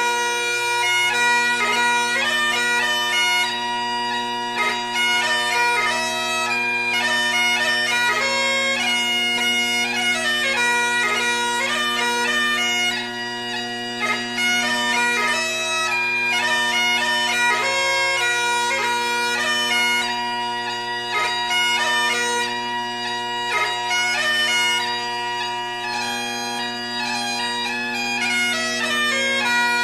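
Bagpipe music: a steady drone held under a moving, ornamented melody.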